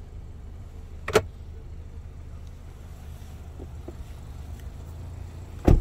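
Glove compartment lid of a 2021 Subaru Outback clicking shut about a second in, then the front passenger door shutting with a heavy thud near the end, over a low steady rumble.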